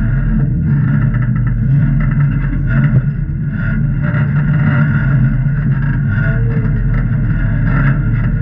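Jeep engine running steadily, with no sharp revving.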